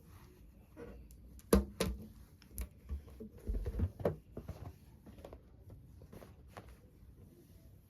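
Hands handling packaging and small rubber balloons: a string of taps, clicks and crinkles. The loudest is a sharp click about one and a half seconds in, with a busy cluster up to about four seconds, then only scattered light ticks.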